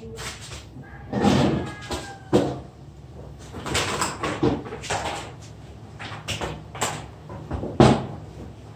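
Irregular knocks and clatters, about a dozen, as of hard objects being handled and set down, the loudest near the end.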